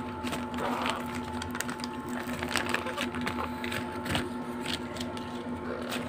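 Irregular scratching and rustling clicks of newspaper and cardboard as parrot chicks are handled, over a steady low electrical hum.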